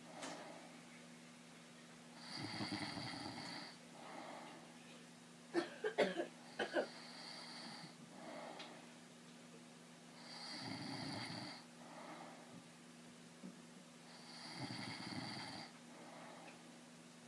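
A man snoring in his sleep: deep snores several seconds apart, each about a second long, with softer breathing between them. About six seconds in there is a quick cluster of sharp clicks or knocks, the loudest sound here.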